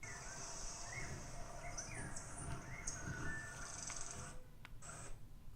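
Faint nature soundtrack from a Dolby Atmos demo disc playing through a Sony HT-ZF9 soundbar and subwoofer: a steady high insect-like hiss with several short bird chirps over a low rumble. The hiss cuts out a little after four seconds.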